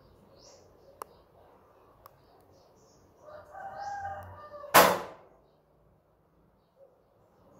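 A drawn-out pitched call with several overtones, lasting about a second, followed straight after by a single sharp bang, the loudest sound. A faint click comes about a second in.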